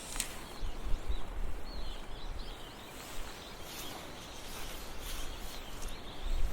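Mountain river water rushing steadily, with a small bird singing quick, wavering high notes now and then and an uneven low rumble underneath.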